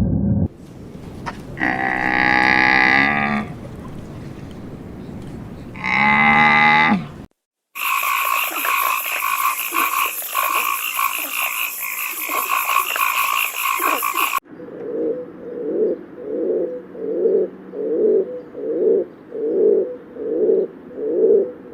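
A run of animal calls: two long drawn-out pitched calls, then a steady buzzing chorus for several seconds, then a rhythmic series of low croaks, about one and a half a second.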